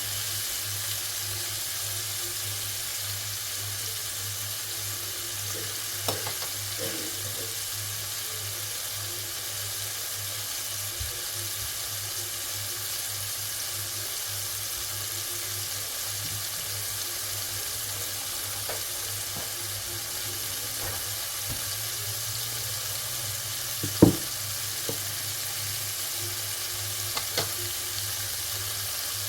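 Food frying in a pan, sizzling steadily, with a few sharp knocks of utensil on pan, the loudest about 24 seconds in, over a low steady hum.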